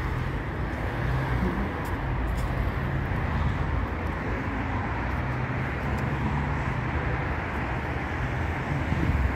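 Steady street traffic: cars driving past on a city avenue, a continuous low rumble of engines and tyre noise.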